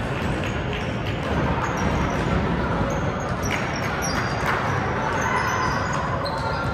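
Youth basketball game in a gym: a ball bouncing on the court over the steady hubbub of players and spectators, with short high squeaks from sneakers in the second half.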